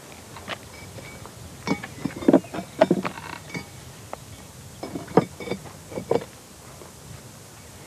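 Red clay bricks set by hand against each other and against Leca blocks, with a series of short clinks and knocks, loudest about two to three seconds in and a few more around five to six seconds.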